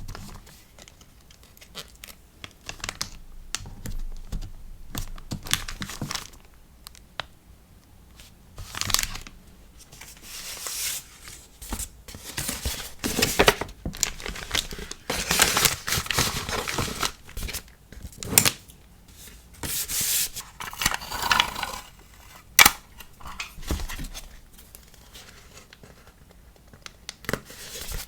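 Paper and plastic packing materials being handled close up: irregular tearing, crinkling and rustling with small sharp taps, busiest in the middle.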